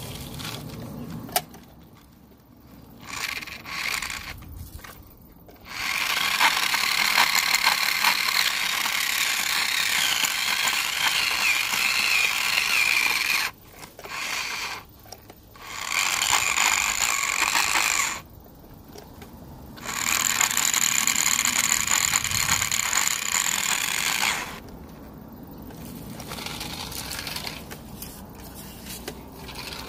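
RC car's motor running at high revs in repeated bursts of a few seconds, with a high steady whine, as the wheels spin and skid in dirt. There are quiet gaps between runs.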